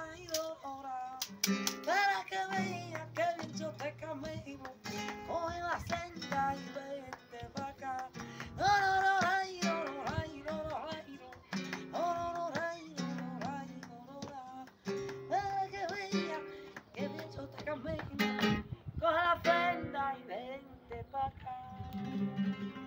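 Flamenco song: a woman singing with bending, ornamented melodic lines, accompanied by a plucked and strummed acoustic guitar.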